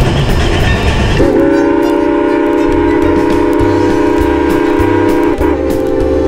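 Locomotive chime whistle blowing a long, steady multi-note chord, starting about a second in with a brief break near the end. Before it there is about a second of loud rushing noise.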